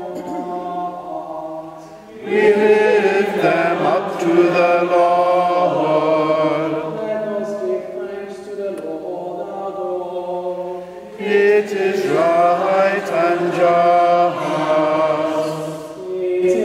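Priest and congregation chanting the Preface dialogue of the Mass in turn: a single voice intoning, answered by many voices singing together, twice.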